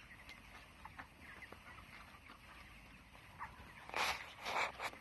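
A flock of broiler chickens in a poultry house, a steady chatter of many small cheeps and clucks, with two louder, noisy bursts near the end.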